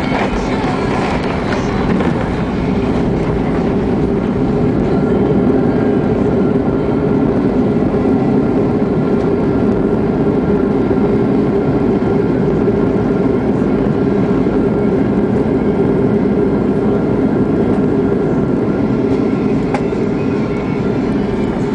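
Cabin noise of a jet airliner rolling along the runway just after landing: a loud, steady rumble of engines and wheels with faint steady engine tones above it. It swells slightly a few seconds in and eases a little near the end.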